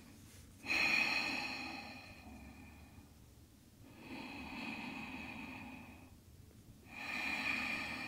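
A woman breathing deeply and audibly while holding a seated forward fold: three long breaths, the first the loudest.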